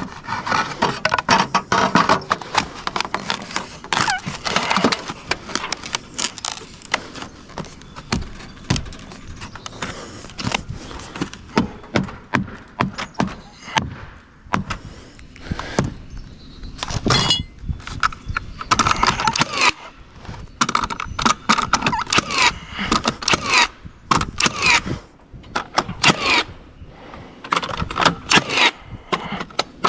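Carpentry clatter: a claw hammer knocking, with a cedar fascia board and metal flashing being handled and scraped. It comes as a long, irregular run of knocks, clicks and scrapes.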